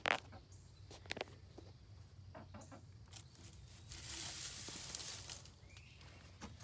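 Scratchy rustling and handling noise from someone searching a chicken coop: a few sharp clicks and knocks, then about a second and a half of rustling about four seconds in, over a low steady hum.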